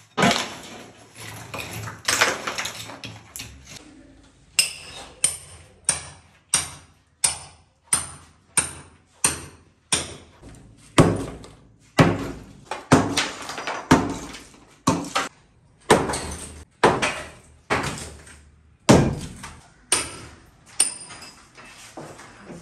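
Hammer blows struck over and over, about one and a half a second, each a sharp knock that rings briefly. The first few seconds hold looser, irregular knocks.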